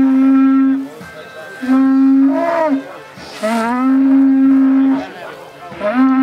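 An animal horn blown in long, steady blasts on one low note, about four of them with short breaths between. The second blast breaks upward into a higher note near its end, and the last is short.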